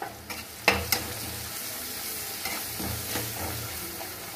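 Sliced onions and green capsicum sizzling in a metal kadai while a metal slotted spoon stirs them, scraping and clicking against the pan; the sharpest click comes just under a second in.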